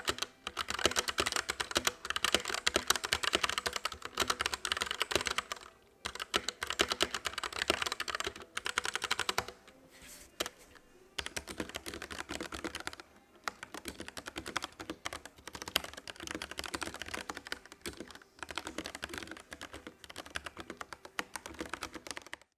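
Fast typing on mechanical keyboards: first stock Gateron Brown tactile switches, then, after a short pause about ten seconds in, somewhat quieter typing on pre-lubed Gateron Yellow linear switches.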